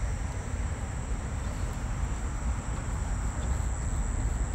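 Crickets singing steadily in the grass, a constant high note, over a low background rumble.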